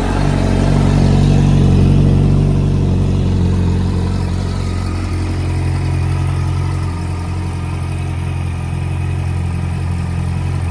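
Yamaha R1 inline-four engine idling steadily just after a cold start. It runs a little louder in the first two seconds, then settles.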